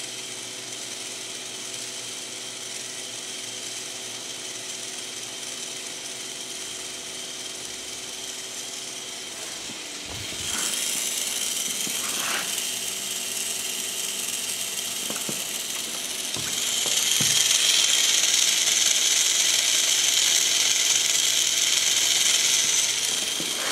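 K'nex motor and plastic gear train driving the chain of a home-built camera dolly, running steadily at slow speed. It gets louder about ten seconds in and again around seventeen seconds, with a few faint knocks in between.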